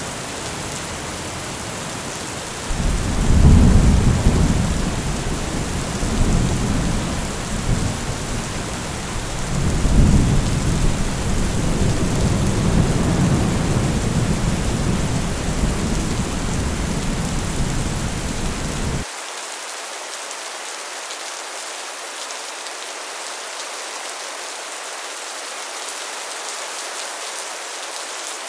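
Heavy rain falling steadily on a metal roof, with thunder rumbling in a few seconds in. The thunder swells twice and then cuts off suddenly about two-thirds of the way through, leaving the rain alone.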